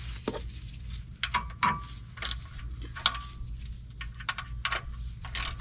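A hand ratchet clicking in short, irregular bursts with metallic clinks as the oil drain plug is run back into the oil pan.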